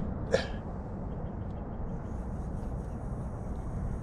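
Fishing boat's motor running steadily under way, a low even hum, with a short sharp sound just after the start and a faint high whine coming in about halfway through.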